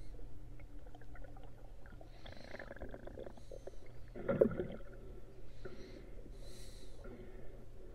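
Muffled underwater sound picked up through an action camera's housing: a steady low hum under faint clicks and water gurgling, with one louder gurgling burst about four seconds in.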